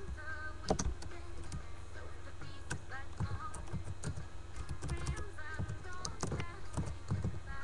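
Music playing low from a computer, with computer keyboard typing and clicks.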